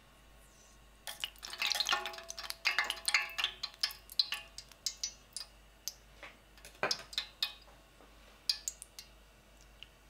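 Metal probe of a digital thermometer clicking and tapping against a stainless steel pan of oil: a quick cluster of clicks with short metallic ringing about a second in, then sparser single taps.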